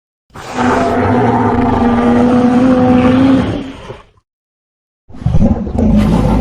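Lambeosaurus sound effect: a long, loud call holding one steady low pitch over a rough, rumbling noise, lasting about four seconds. A second call starts about a second before the end.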